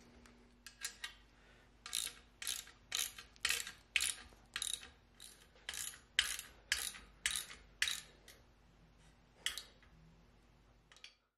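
Ratchet wrench clicking in short strokes, roughly two a second, as a nut is tightened onto a bolt holding a steel vise base to its mounting plate; a last stroke comes after a short pause near the end.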